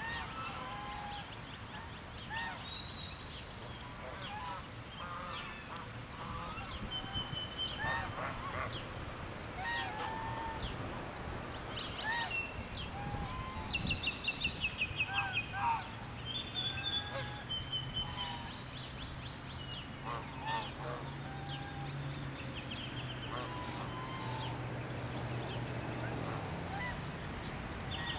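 Domestic geese honking, short calls scattered throughout, with a fast run of repeated honks about halfway through.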